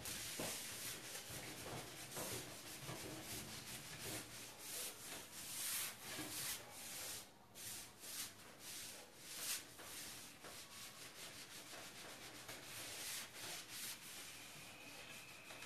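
Rapid, uneven rubbing strokes against the painted wooden surface of a table, a scratchy scrubbing with a brief pause about seven seconds in.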